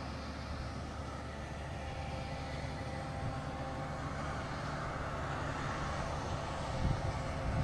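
Tractor pulling a LEON vertical-beater manure spreader while it spreads manure: a steady mechanical drone of the engine and the spreader's beaters. Two short low thumps near the end.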